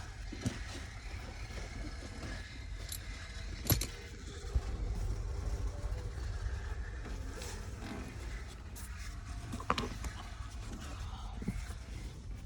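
Hands working on a car's wiring harness and plastic interior parts: a few sharp clicks and knocks, one about a third of the way in and another near the end, over a steady low rumble.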